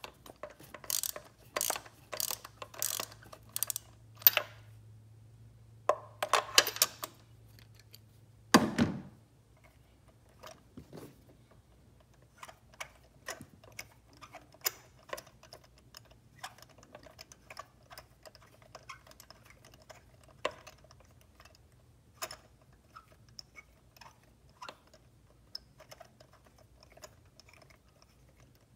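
Hand tools and metal parts clicking and scraping during spark-plug work on an engine: a quick run of strokes in the first few seconds and again around six seconds, one heavier thunk about nine seconds in, then scattered light clicks.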